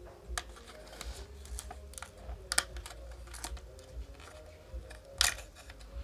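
Irregular small clicks and taps from the plastic housing and internal parts of a Bluetooth speaker being handled, with two sharper clicks about two and a half and five seconds in.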